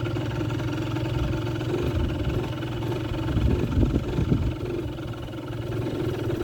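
Kymco Super Fever ZX 50cc two-stroke scooter engine idling, with an uneven patch of louder surges around the middle. The idle is poor, which the owner puts down to a bad carburettor and bad fuel starving it of fuel.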